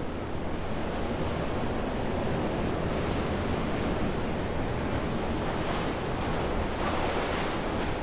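Ocean surf breaking and washing over a rocky shore at the foot of a cliff, a steady rush of foaming water, with one wave washing in more strongly near the end.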